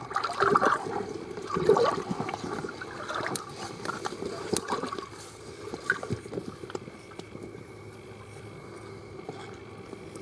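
River water gurgling and sloshing around an underwater camera, with irregular knocks and clicks that are busiest in the first few seconds and ease off after about six seconds into a steadier wash.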